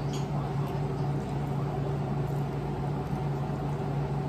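A steady low machine hum, like a household appliance running, with a few faint clicks about the first quarter second.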